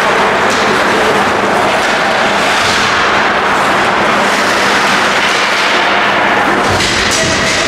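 Game sound of an ice hockey match in an ice rink: a steady, loud wash of noise, with a few brief high scrapes of skates on the ice, over a steady low hum.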